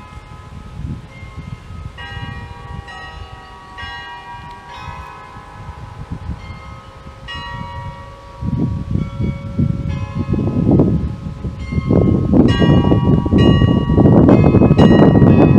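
Church bells ringing, several bells struck over and over in an overlapping peal. Wind rumbles on the microphone from about halfway through and grows loud near the end, rising above the bells.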